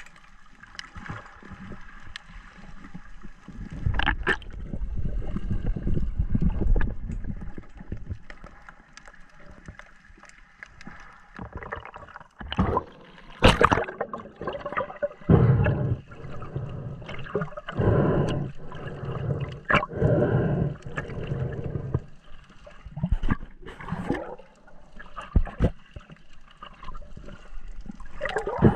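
Water swishing and gurgling around an underwater camera housing, in irregular surges, with bumps and a sharp knock about halfway through.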